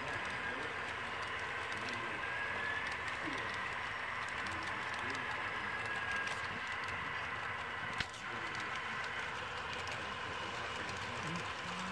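Model railroad freight cars rolling past, with a light, fast clicking rattle from their wheels on the track and one sharp click about eight seconds in.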